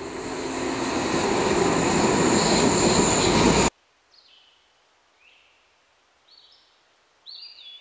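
A train running on rails, growing steadily louder, its rumble topped by a high thin wheel squeal, then cutting off suddenly a few seconds in. After that it is almost quiet, with a few faint bird chirps.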